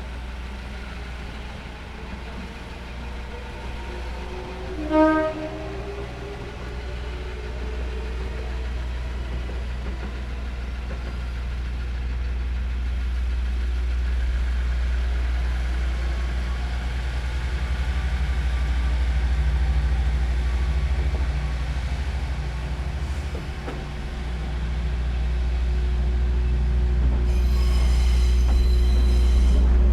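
Diesel train's engine running with a low rumble that grows gradually louder, with one short horn toot about five seconds in. A hissing noise starts near the end.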